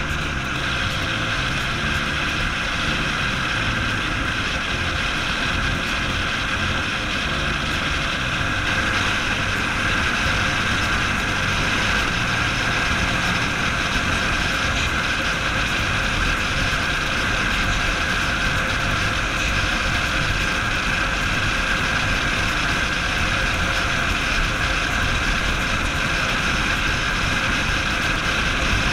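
Buell XB12STT's air-cooled V-twin engine running at a steady cruise, mixed with constant wind rush on the bike-mounted microphone.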